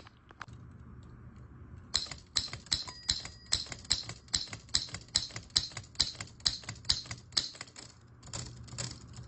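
Underwood No. 5 manual typewriter being typed on: a steady run of sharp keystroke clacks as the typebars strike the platen, about three a second, starting about two seconds in.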